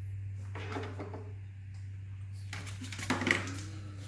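Handling noise of hands working inside an open solar inverter enclosure: two short bursts of rustling and clatter, the louder about three seconds in, over a steady low hum.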